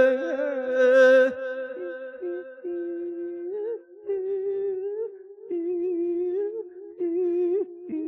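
A man's voice in Isan sung sermon chanting (lae), stretching out long, wavering vowel notes without clear words. The pitch steps up after about two seconds and the line breaks briefly for breaths.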